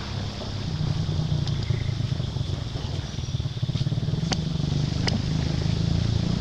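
Steady low rumble throughout, with a faint high steady hiss above it and two sharp clicks about four and five seconds in.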